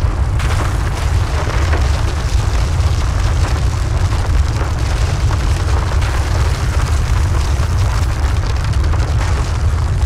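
A steady, loud, deep rumble with crackling noise above it, a ground-shaking rumble effect. The crackle brightens about half a second in.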